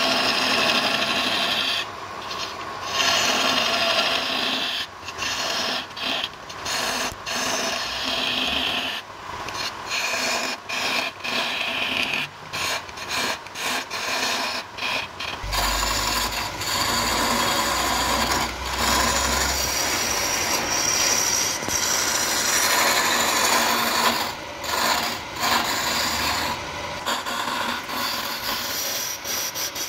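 Lathe chisel cutting into a spinning wooden blank: a noisy scraping cut of steel on wood, broken by many short pauses. A low hum joins for a few seconds past the middle.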